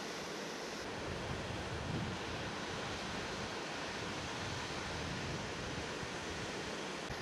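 Ocean surf breaking and washing toward shore as a steady roar, with wind rumbling on the microphone; the low wind rumble picks up about a second in.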